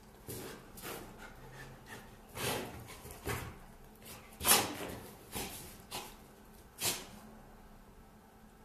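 A Goldendoodle huffing at a piece of banana: about eight short, breathy puffs over seven seconds, the loudest about four and a half seconds in, then they stop.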